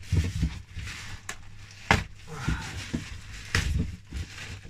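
A cardboard parcel being handled and opened by hand: irregular knocks, thumps and scrapes of the packaging, with a few sharp clicks.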